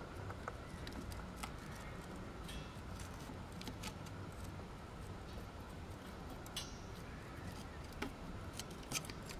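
Faint, scattered metallic clicks and ticks of piston ring expander pliers being worked as a ring is spread on a truck diesel piston, over a low steady background rumble.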